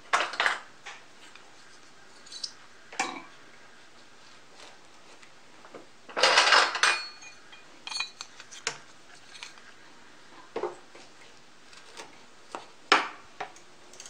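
Small metal claw weights being handled and hooked onto the knitting under a knitting machine's needle bed: scattered metallic clicks and clinks, with a longer clatter about six seconds in.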